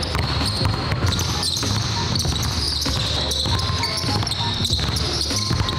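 Basketball being dribbled repeatedly on a hardwood gym floor.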